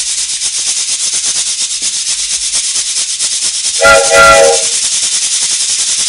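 A cabasa scraped in a fast, steady rhythm, giving a hissing train-chugging sound. About four seconds in, a multi-tone train whistle is blown once, briefly, over the chugging.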